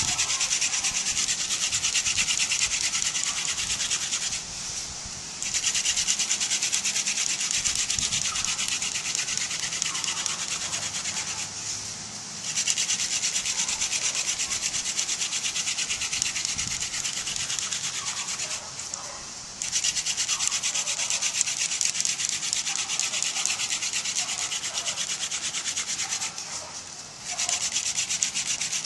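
Hand drill friction fire: a garden dill stalk spindle, tipped with a wooden plug, spun back and forth in the notch of a balsam fir hearth board, giving a steady high rasping of wood grinding on wood. The rasping breaks off briefly four times, about every seven seconds.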